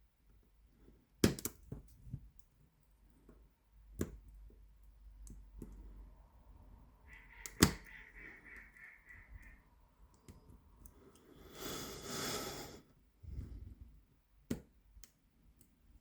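Metal pins of an 8-pin tubular cam lock and the picking tool clicking as the lock is picked: a few sharp single clicks spread out, a short run of light ticks at about four a second around the middle, and a brief rasping noise a few seconds later.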